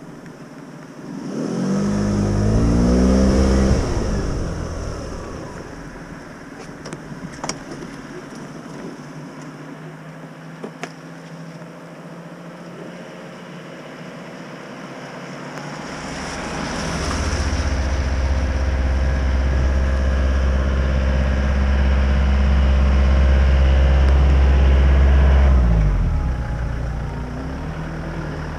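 Motor vehicles driving past on a wet road. One passes about two seconds in, its engine note dropping as it goes by. From about halfway a louder, deeper engine sound with tyre hiss builds, holds steady for several seconds, then falls away near the end.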